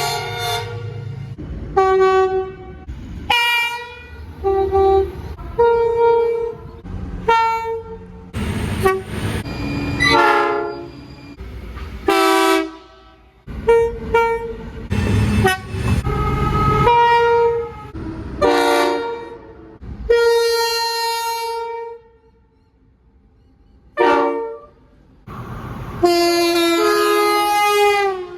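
Locomotive air horns sounding a rapid string of short and long blasts, each a multi-tone chord, with the pitch of the chords changing between clips. Near the end one long blast drops in pitch as the train passes.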